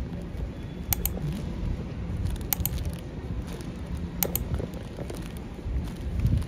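Airport terminal hall ambience: a steady low rumble, with three pairs of sharp clicks about a second and a half apart.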